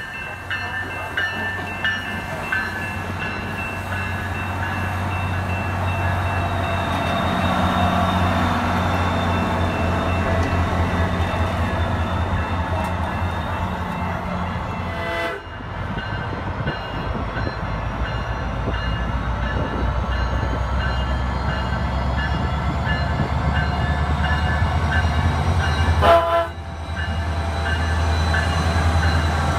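SunRail commuter train's diesel locomotive running as the train pulls along the platform, a steady low engine drone. A horn sounds for several seconds from about seven seconds in. The sound breaks off abruptly twice.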